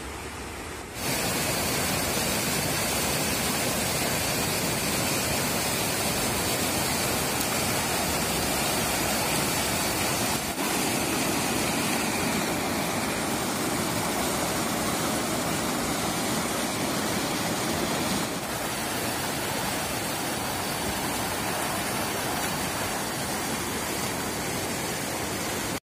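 Fast river rapids: white water rushing over boulders, a steady loud rush that sets in about a second in.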